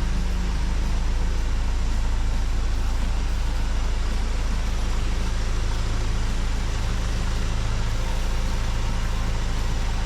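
A car engine running steadily, a constant low hum whose pitch shifts slightly about halfway through.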